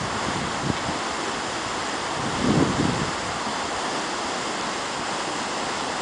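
A 60 m waterfall falling onto rocks into a river pool: a steady rush of water, with a brief gust of wind on the microphone about two and a half seconds in.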